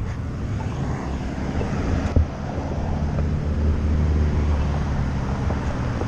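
Road traffic: cars passing with a low engine and tyre rumble that swells for a couple of seconds midway, heard with wind on a bicycle-mounted GoPro's microphone. One sharp knock about two seconds in.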